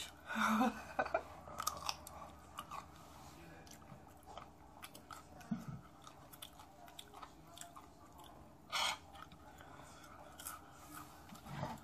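A person chewing a pickle close to the microphone: a cluster of crunchy bite sounds in the first second, then wet chewing with many small smacking clicks, and one short louder burst about nine seconds in.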